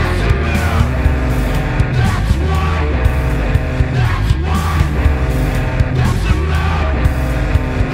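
Music with a steady beat over dense, sustained bass and chord tones.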